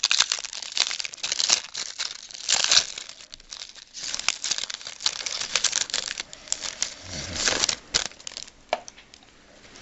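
Plastic wrapper of a trading card pack being torn open and crinkled by hand, in quick irregular crackles that thin out near the end.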